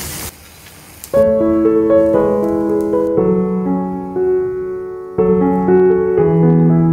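Background music: solo piano playing a gentle melody, which comes back in about a second in after a brief pause.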